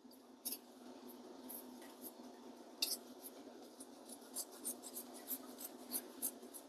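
Faint, irregular small ticks and scratches from a pan of creamy chipotle sauce with Parmesan going into it, over a low steady hum. The ticks come more often from about four seconds in.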